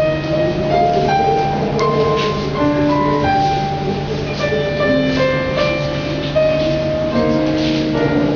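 Slow piano music from the show's accompaniment: a melody of held notes stepping up and down over a steady sustained low note.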